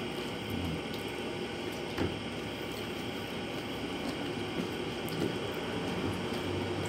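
Eating by hand: fingers mashing and mixing wet rice with sardines on a ceramic plate, soft squishing and chewing. A steady background hiss lies under it, with one light click about two seconds in.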